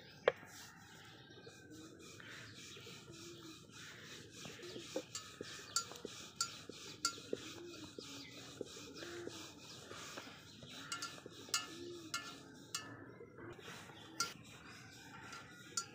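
Wooden rolling pin rolling out paratha dough on a floured wooden board: a soft rumbling rustle with scattered light knocks and clicks of the pin against the board. The sharpest knock comes just after the start.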